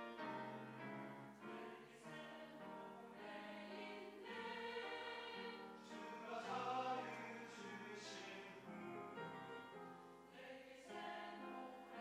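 Mixed choir of men's and women's voices singing a sacred choral anthem in sustained phrases, with piano accompaniment.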